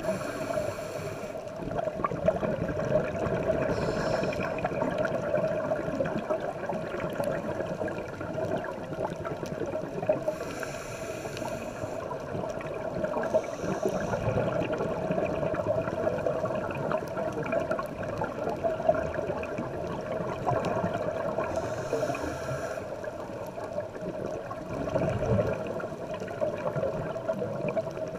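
Underwater sound of a scuba dive: a steady watery wash, broken by a diver's regulator breathing, with a hiss and bubbling lasting a second or two, several times and roughly ten seconds apart.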